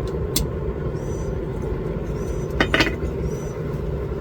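Steady low rush of a running propane forge burner, with a few light metal clinks, the loudest a quick cluster about two and a half seconds in.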